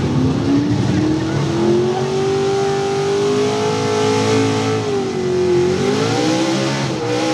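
440-cubic-inch small-block Chevrolet V8 in a 4x4 pulling truck, running at high revs under full load as it drags the sled. The engine pitch climbs over the first couple of seconds, holds high, dips about five and a half seconds in and climbs again.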